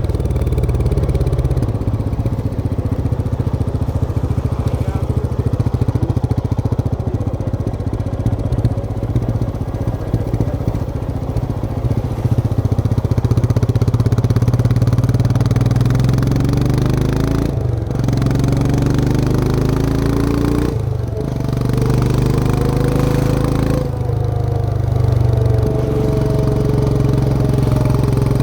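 Royal Enfield Himalayan 411's air-cooled single-cylinder engine under way. It runs steadily at first. In the second half it accelerates with three short breaks in power, about 18, 21 and 24 seconds in, the pitch rising after each one as the rider shifts up through the gears.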